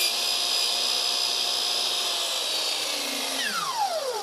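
Chop saw motor running at full speed with a steady whine, then released about three seconds in, its pitch falling as the blade spins down.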